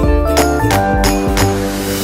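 Background music with a steady beat and a hiss swelling near the end.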